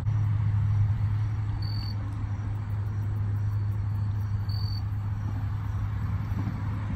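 A short high chirp, typical of an insect, sounds twice about three seconds apart over a steady low hum.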